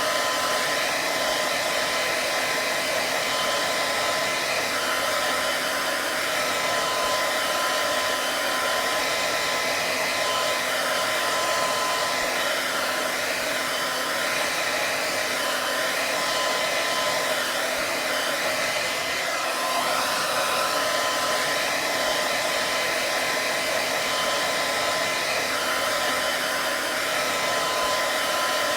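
Hair dryer running steadily: an even rush of air with a constant high whine from the motor.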